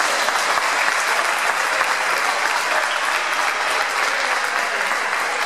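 Spectators applauding steadily, a dense unbroken clapping.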